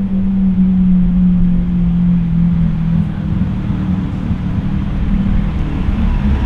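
A car engine running with a low rumble; its steady humming note sinks slightly and fades out about three seconds in.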